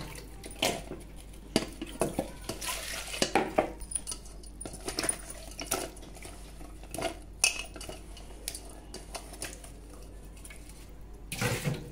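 Stainless steel bowl clinking and knocking as green bajji chillies are handled and turned over in it: a series of irregular light knocks.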